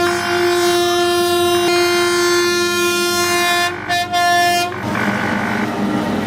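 Train horn sounding a long, loud held chord, with a brief break and a short final blast before it cuts off about three-quarters of the way through. A loud, noisy rumble follows.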